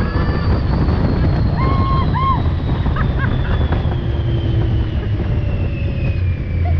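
Strong wind rushing over the microphone and a low rumble as a Test Track ride vehicle runs its open-air high-speed loop. A high whine falls steadily in pitch throughout, and a couple of short whoops from the riders come about two seconds in.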